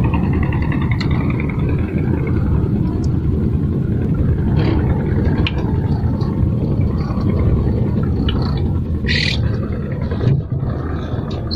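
Kubota diesel engine running steadily with a loud, even, low rumble. A short hiss sounds about nine seconds in.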